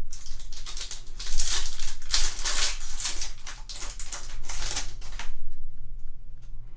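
Foil wrapper of a Yu-Gi-Oh! booster pack crinkling and tearing as it is opened by hand and the cards are pulled out. The crinkling dies away about five and a half seconds in.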